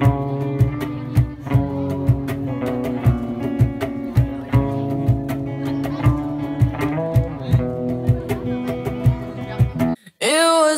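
Live acoustic busking: two acoustic guitars strumming chords over a cajón beating a steady rhythm about twice a second. Near the end it cuts off abruptly and different music begins.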